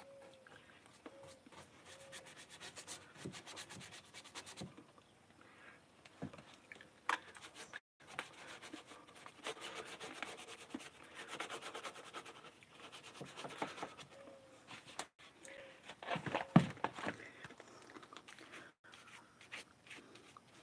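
Small paintbrush rubbing and scratching over a painted cabinet frame, with scattered light knocks and one louder knock about sixteen seconds in.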